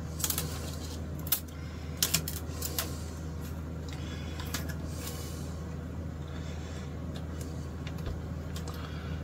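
Thin plastic guitar binding strips clicking and tapping against each other and the workbench as they are handled and lined up, several quick clicks in the first few seconds, over a steady low hum.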